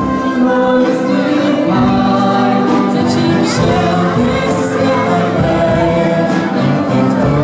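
A girl and a boy singing a song into microphones, with a live band accompanying them, in steady sung phrases of held notes.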